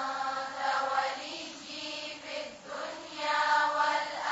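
Soft melodic chanting of a supplication, the voice held on long pitched notes in two phrases with a short break between them.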